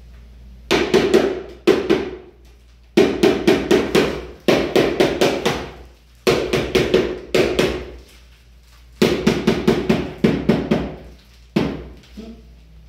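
Rubber mallet tapping a large ceramic floor tile to bed it and level it into fresh mortar: about eight quick runs of knocks, several a second, with short pauses between them.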